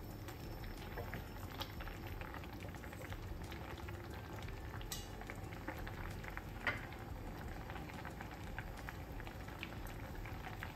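Rice boiling in water in a stainless steel pan over a high gas flame: a steady bubbling with many small pops, as the excess water is cooked off from the nearly done rice. A few sharper pops stand out in the middle.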